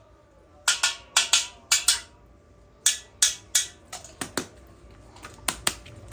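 Plastic packaging being handled: a dozen or so sharp clicks and crackles in quick pairs and threes.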